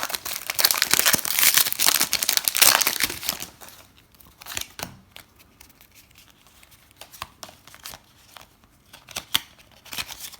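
Foil wrapper of a Pokémon trading card booster pack crinkling and tearing open for about the first three and a half seconds. Then come quieter, scattered flicks and ticks of the cards being handled.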